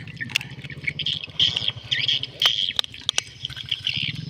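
A dog lapping and licking from a shallow plastic dish, making scattered sharp wet clicks, while birds chirp in short repeated bursts and a low steady hum runs underneath.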